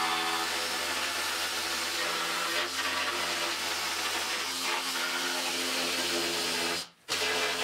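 Handheld pneumatic tool running steadily against the car's sheet-metal sill, a continuous hiss with a steady buzzing tone; it breaks off for a moment near the end.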